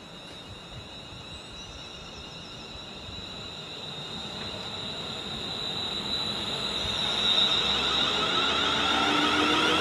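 Class 350 Desiro electric multiple unit pulling away and gathering speed. Its traction motors give a steady high whine, with a lower tone rising near the end, over the rumble of the wheels on the rails, all growing steadily louder.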